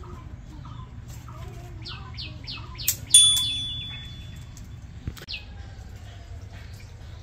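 Birds chirping, with a quick run of short, falling chirps about two seconds in. A sharp metallic clang comes just after, the loudest sound, ringing on with a clear tone for about a second.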